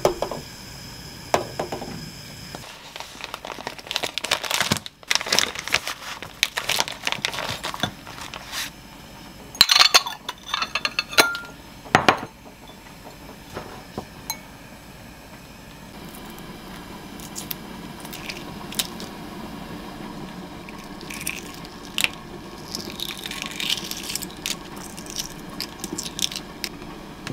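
Kitchen handling sounds: a pot, bowl and dishes knocking and clinking. In the second half a steady low hum runs, and near the end boiled eggshells crackle as they are cracked and peeled.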